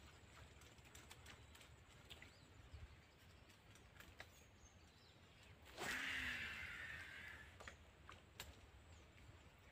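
A snakehead striking at a frog bait on the pond surface: one sudden splash about six seconds in that fades out over a second or so, against faint outdoor background with a few small clicks.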